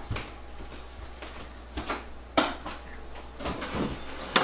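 A few separate knocks and clunks, then a sharp clack near the end as a glass baking dish is set down on a gas stove's metal grate.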